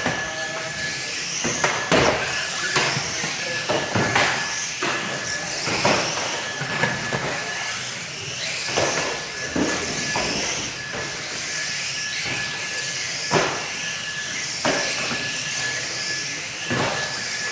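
A pack of radio-controlled model saloon cars racing on a carpet track: a steady whir of motors and tyres that swells as cars pass close, with sharp knocks every second or two.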